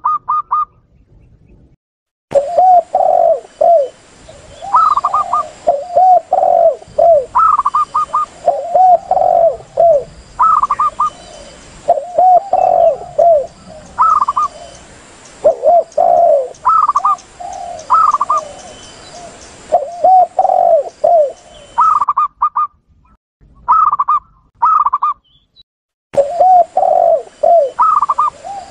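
Spotted doves and zebra doves cooing over one another, a dove lure-call recording. Low, rolling coos repeat every second or so, mixed with quicker, higher-pitched notes. The calls break off briefly near the start, and only the higher notes are heard for a few seconds later on.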